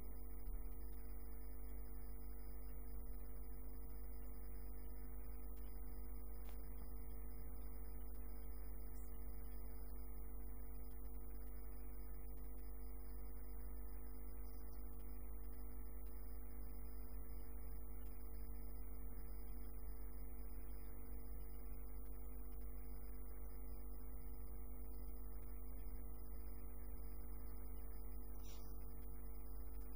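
Steady electrical hum made of several fixed tones, unchanging in level throughout.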